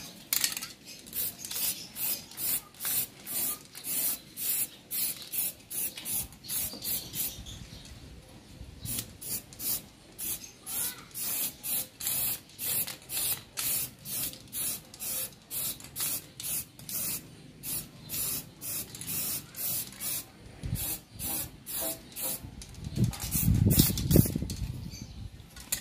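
Aerosol can of high-temperature flat black paint spraying in short hissing bursts, about two a second, with a brief pause about eight seconds in. Near the end a louder low-pitched noise lasts about two seconds.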